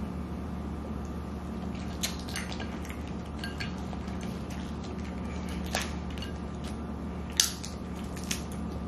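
Boiled crawfish being cracked and peeled by hand: scattered sharp shell cracks and wet squishes, the loudest crack about seven and a half seconds in, over a steady low hum.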